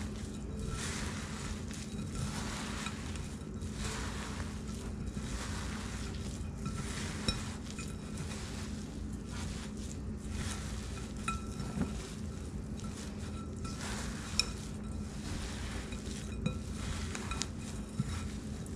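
Hands kneading raw ground beef meatloaf mix in a glass bowl: rhythmic wet squelching, with a few sharp clinks against the glass.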